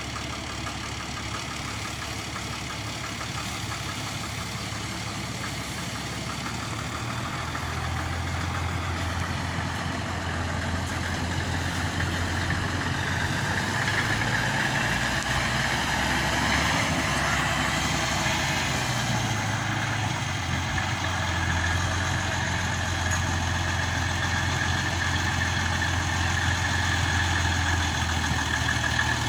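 Old flatbed truck's engine running slowly while hauling a whole wooden house on its bed, growing louder about a third of the way in as the truck approaches, then holding steady.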